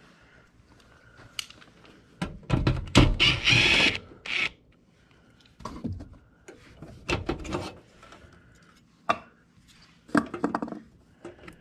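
Hand tools and metal parts handled while the blower motor mount bolts of an air handler are loosened. A longer, louder noisy stretch comes about two to four and a half seconds in, followed by scattered short clicks and knocks.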